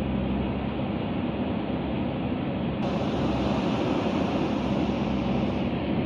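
JCB backhoe loader's diesel engine running steadily under load while its backhoe arm digs into a hillside.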